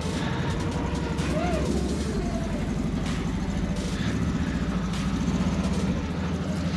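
Can-Am Defender HD9 side-by-side's V-twin engine running steadily at low revs as the machine creeps across gravel.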